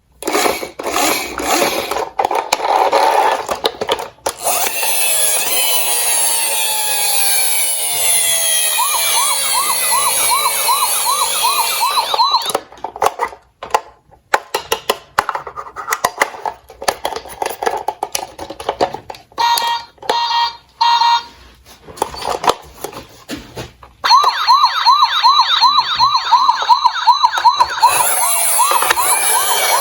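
Electronic sirens of toy emergency vehicles: overlapping falling wails, then a fast warbling yelp of about four cycles a second that comes and goes, with a brief steady tone in the middle. Under them, a steady clatter of small toy cars rolling down a slope and knocking together.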